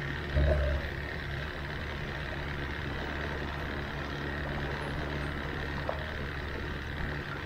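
Bass boat's outboard motor idling steadily, with a short low thump about half a second in.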